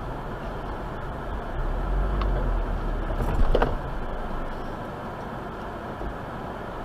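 Road and engine noise of a car heard from inside its cabin as it comes to a stop behind a stopped vehicle, with a brief loud clatter about three and a half seconds in.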